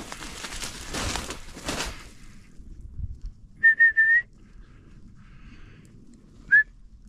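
Footsteps rustling through dry cover, then three quick, high whistle toots and, a couple of seconds later, one more short toot that slides up in pitch: a hunter whistling to his bird dog.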